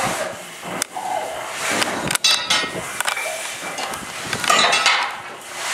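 Scattered clinks, knocks and rattles of firefighting gear as trainees crawl across a hard floor wearing breathing-apparatus air cylinders, with a tool lying on the floor beside them.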